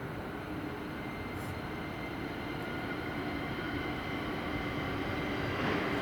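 Electric commuter train approaching on the line, its running noise a steady rumble with faint steady tones, growing gradually louder.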